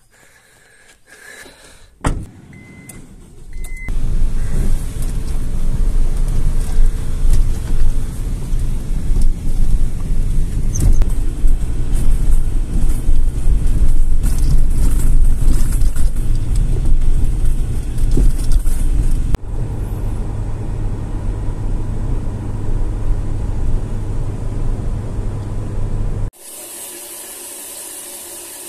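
Car driving, heard from inside the cabin: a steady low rumble of road and engine noise, quieter from about two-thirds of the way through. Near the end it cuts to the steady hiss of a shower spraying water.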